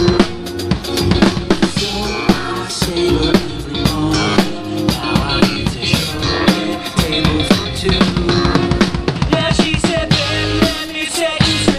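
A live rock band playing a song, with a drum kit beating out a busy rhythm of bass drum and snare hits over sustained instruments.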